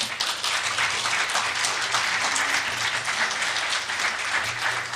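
Audience applauding, many hands clapping at once; it breaks out suddenly and holds steady.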